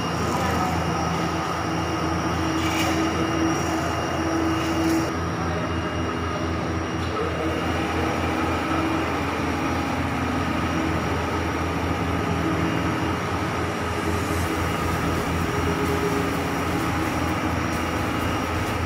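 CNC pattern-making router running as its spindle cuts a large thermocol (polystyrene foam) block: a steady machine drone with several held tones over it.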